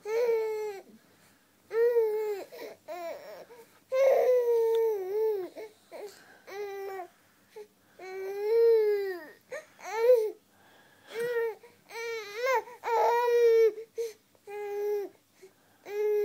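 Baby crying in a string of repeated wails, each half a second to a second and a half long, many of them dropping in pitch at the end, with short breaths between.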